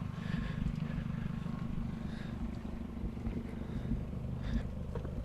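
A vehicle engine idling: a steady low rumble with an even pulse.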